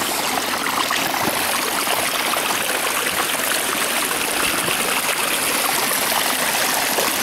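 Shallow creek water running steadily, a constant rushing trickle.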